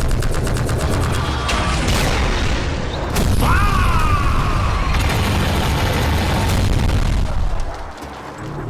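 Layered action sound effects: heavy booms and continuous rumbling, with a rapid run of sharp clicks or shots in the first second or so and a short whine that rises and then falls about three and a half seconds in.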